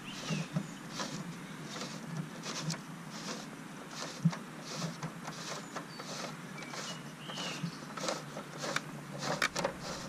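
Bruder toy fire engine's plastic aerial ladder being extended, with soft clicking about twice a second from its mechanism.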